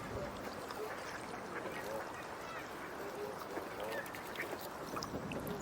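Ducks quacking: a scatter of short, soft calls over a steady background hiss.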